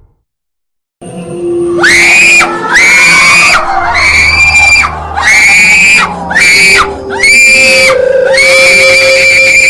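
Horror sound effect: after a second of silence, about seven shrill, high-pitched shrieks follow one another with short gaps, each rising briefly and then held, over a low steady drone.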